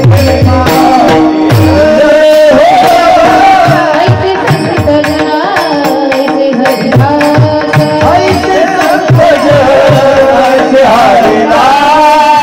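Women singing a Marathi devotional song to hand-drum accompaniment, the low drum strokes sliding down in pitch, over a held drone.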